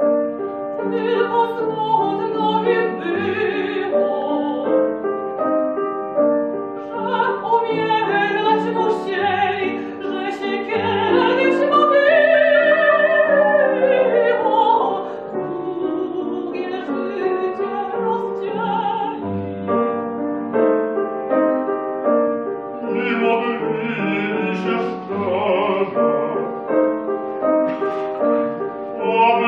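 A soprano singing an operatic art song with grand piano accompaniment, her voice carrying a wide vibrato. About twelve seconds in she sustains one long note that climbs and then falls away.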